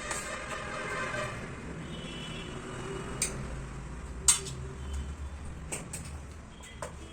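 Cutlery clinking against a dish several times, with the sharpest clink about four seconds in.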